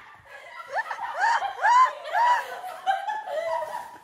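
Young women laughing, a run of short high-pitched laughs starting about a second in, then quieter giggling.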